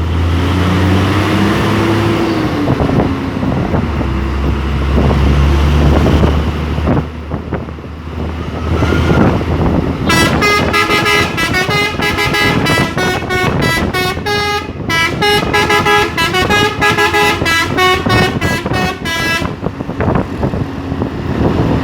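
Hino truck's engine running under load, its pitch rising then falling, for about ten seconds. Then the truck's three-trumpet telolet air horn plays a quick tune of short notes that change pitch, for about nine seconds, before it stops and the engine is heard again.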